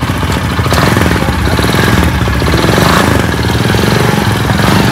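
Motorcycle engine running close by, loud and steady, with a fast even beat.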